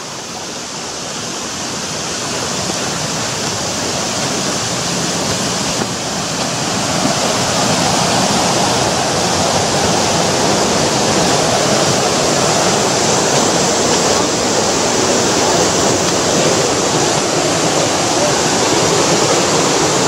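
Steady rushing of a river, growing louder over the first several seconds and then holding steady.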